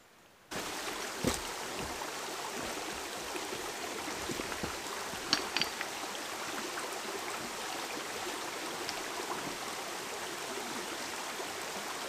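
Shallow stream running over stones, starting abruptly about half a second in. A few short sharp sounds stand out, once early and a few times around the middle, from boots stepping through the water.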